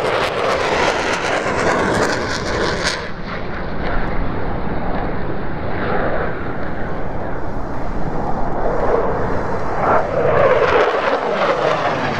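Jet noise from a twin-engine F-15 fighter flying low and fast past the hillside. The hissing top end drops away about three seconds in as the jet moves off, and the rumble swells again near the end.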